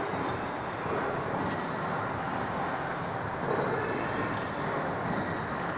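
Steady city street traffic noise, the even rumble and hiss of passing vehicles.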